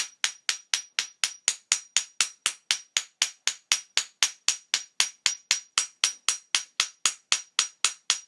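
Hammer rapping the side of a Master Lock padlock in quick, even strikes, about four a second, each with a short high metallic ring: the side-hammering (rapping) technique to jar the locking pawls while the shackle is held under pressure.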